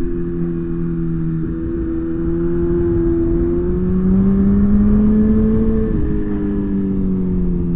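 Suzuki GSX-R1000 sport bike's engine running under way at a steady throttle, heard from on board with wind noise. Its pitch climbs slowly for a couple of seconds, drops suddenly about six seconds in, then sinks slowly.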